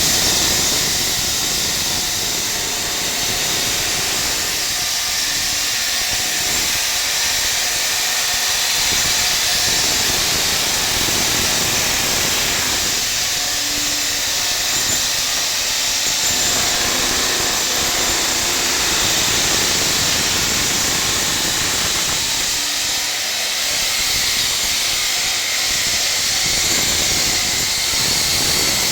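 Power saw cutting into concrete, a steady, loud hissing grind that barely changes.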